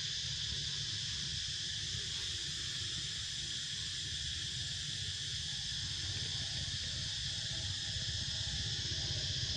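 Steady, unbroken high-pitched insect chorus, with a low rumble beneath it.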